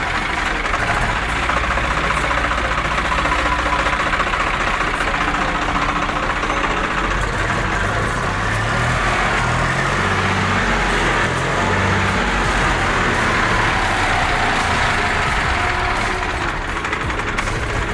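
Lucas TVS starter motor from a Swaraj 735 FE tractor running steadily on test after its coil and rocker plate were replaced and its jammed carbon brushes were cleared.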